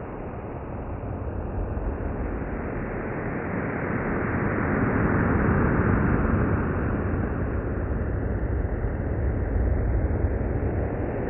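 Sonification of the Sagittarius A* black hole's accretion disk, its X-ray intensity turned into sound. It is a dense, rumbling, rushing noise with no clear tones, swelling to its loudest a little past the middle and easing slightly toward the end.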